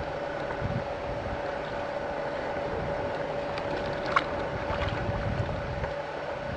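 Wind buffeting the microphone over a constant steady hum, with a single sharp click about four seconds in.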